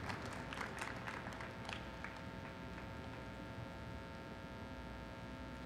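Light, scattered hand-clapping from a small arena audience that thins out and dies away after about two seconds, over a faint steady hum.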